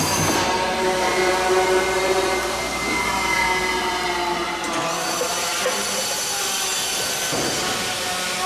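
Background music of sustained chords, with a change of chord about five seconds in.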